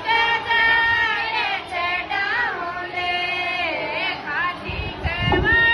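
Women singing a Marwari Mataji geet together, a devotional folk song to the mother goddess, in long wavering held notes. A low rumble comes in briefly near the end.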